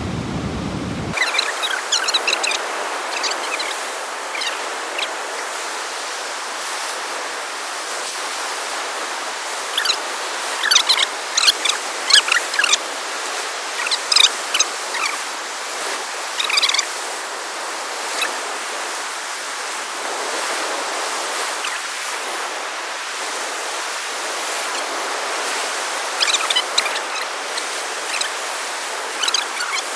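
Steady wash of ocean surf breaking on the beach. It sounds thin, with no low rumble. Clusters of short high-pitched chirps come and go over it, near the start, through the middle and near the end.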